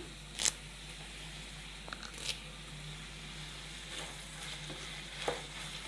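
Wooden spatula stirring diced carrots and fresh curry leaves in a hot metal kadai over a low, steady sizzle, with a few sharp scrapes and knocks of the spatula against the pan.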